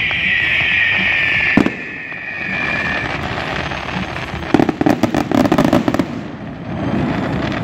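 Aerial fireworks finale: a long whistle sliding down in pitch, a sharp bang about a second and a half in, then a dense run of rapid crackling cracks in the middle, over a low rumble of booms.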